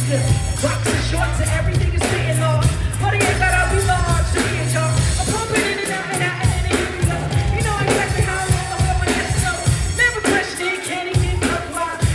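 Live hip hop music over a concert sound system: a heavy, pulsing bass beat with vocals on top, and the bass dropping out briefly twice.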